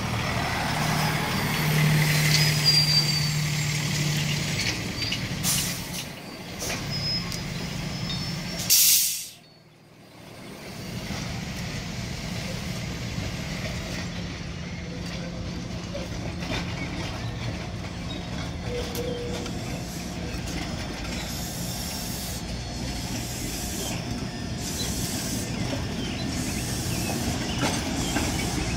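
Heavy vehicles idling with a low engine hum in street traffic, and a loud air-brake hiss about nine seconds in.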